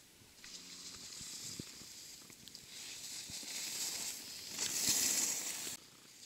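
Skis carving over chopped-up snow: a scraping hiss of the edges that grows louder as the skier comes close and cuts off suddenly near the end.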